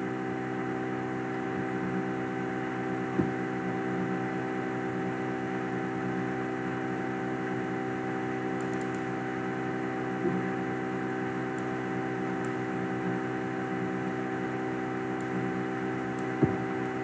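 Steady electrical mains hum with a few faint clicks scattered through it.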